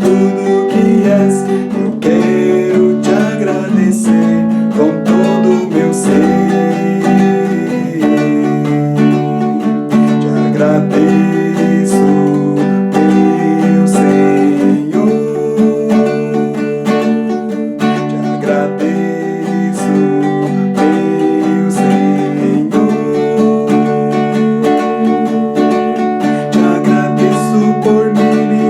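Acoustic guitar strummed in a steady rhythm, playing a worship song.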